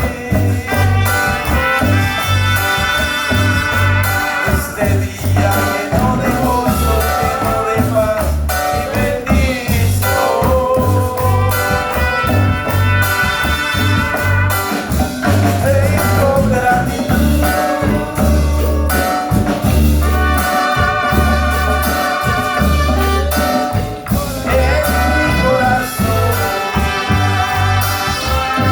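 Upbeat music with brass and a steady, pulsing bass line.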